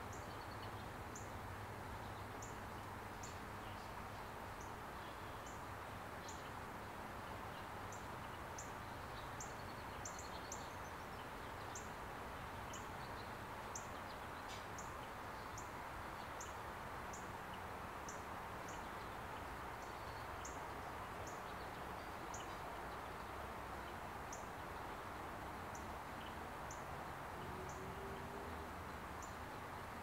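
Outdoor ambience: a steady background hiss with short, high chirps repeating about once a second.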